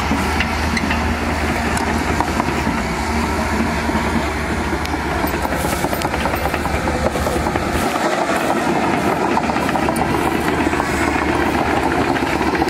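Cat 320 hydraulic excavator running, a steady mechanical din with many small clanks. The deep low rumble drops away about eight seconds in.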